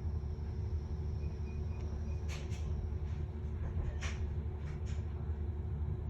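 Steady low background hum with a few faint light clicks, about two and four to five seconds in.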